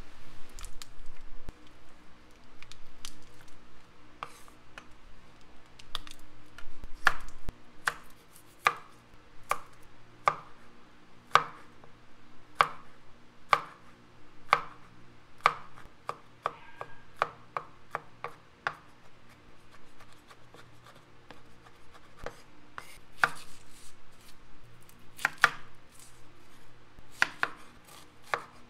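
A stainless cleaver chopping garlic cloves and a red onion on a bamboo cutting board, each stroke a sharp knock of the blade on the wood. The strokes come about once a second, then quicker in the last few seconds.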